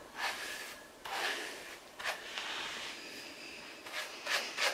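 Tangle Teezer detangling brush drawn through wet hair in repeated short strokes, each a soft scratchy rustle, about one a second and coming quicker near the end.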